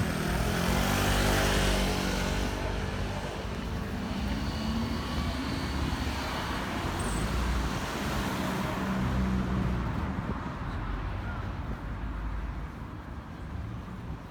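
Road traffic: motor vehicles passing with engine hum and tyre noise, loudest in the first couple of seconds as one goes by, with another passing about nine seconds in.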